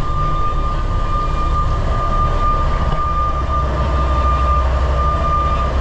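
Large party fishing boat's engines running steadily underway: a constant low rumble with a thin steady whine above it that stops near the end.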